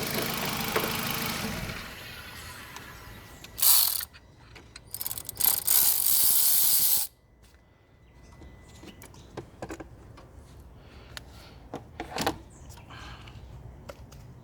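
Car engine running, then dropping away about two seconds in, followed by loud hissing bursts around four seconds and from five to seven seconds, then scattered clicks and rattles of hand tools being worked.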